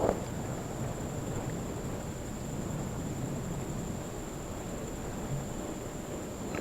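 Steady wind noise over the microphone on open water, an even hiss with a thin, steady high tone running under it.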